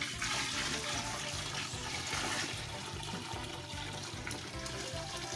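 Dark beer wort poured in a thick, steady stream from an enamel pot into a plastic bucket of liquid, splashing and foaming as it lands.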